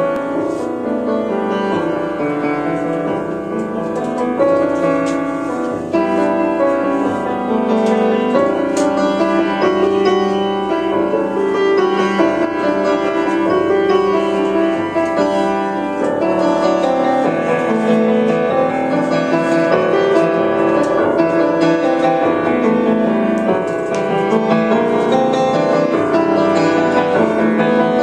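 Jazz piano trio playing live: grand piano to the fore, with drums and upright bass behind it.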